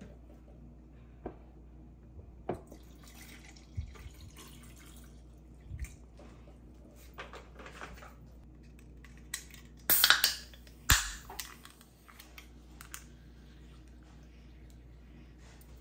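Juice pouring from a carton into a plastic sippy cup, with small knocks of the carton and cup on the counter. About ten seconds in, an aluminium drink can is cracked open: two sharp cracks with a hiss, about a second apart, the loudest sounds here.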